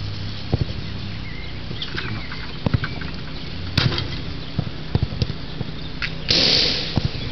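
Outdoor microphone noise: a steady low rumble with scattered short knocks, and a loud rushing gust about six seconds in.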